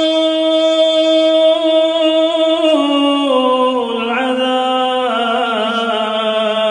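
Quran recitation in a melodic tajweed style, unaccompanied: the reciter holds one long drawn-out vowel on a steady pitch. About halfway through, the voice steps down in several small ornamented notches to a lower held note.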